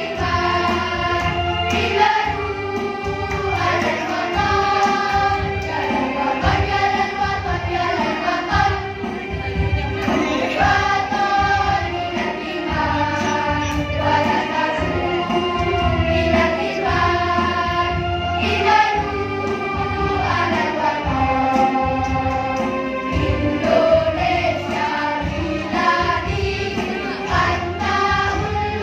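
Girls' school choir singing together, holding long notes and moving between them, over a steady low beat.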